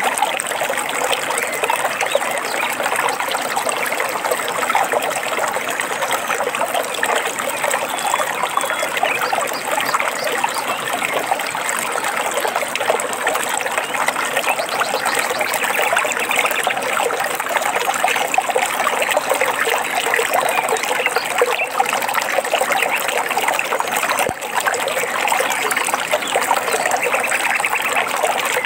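Running water trickling and babbling steadily, like a small stream. Faint bird chirps come through now and then.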